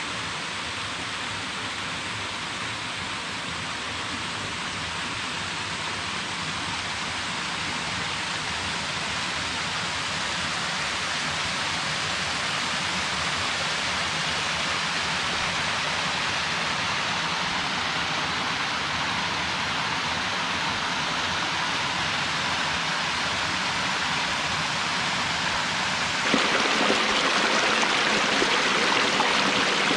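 Shallow rocky creek running over stone ledges and small cascades: a steady rush of water that jumps louder about four seconds before the end.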